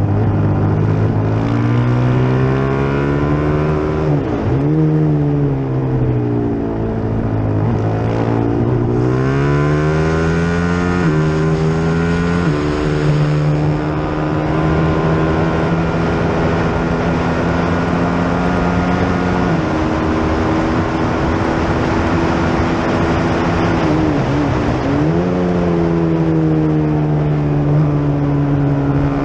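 Onboard sound of a single-cylinder FR450GP race motorcycle engine at racing speed. The revs fall away and climb back twice, about four seconds in and again near the end, as the bike brakes for and pulls out of corners; in between the engine is held high on the straight, with short steps in pitch at gear changes.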